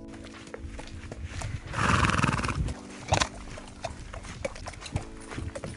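Horse's hooves clip-clopping at a walk on a wet tarmac lane. About two seconds in, a horse whinnies for about a second, the loudest sound here.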